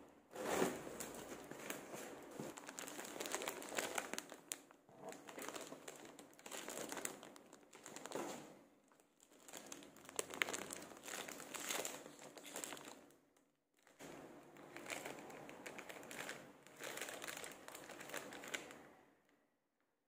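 Plastic packaging and cardboard box flaps crinkling and rustling as a parcel is unpacked by hand, in irregular bursts with short pauses.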